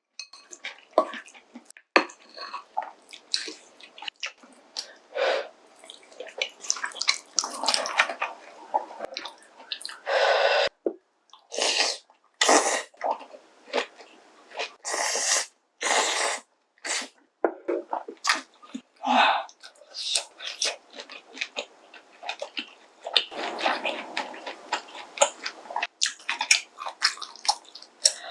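Close-miked eating sounds: repeated slurps of ramen noodles and kimchi-stew broth, with chewing and small clicks in between.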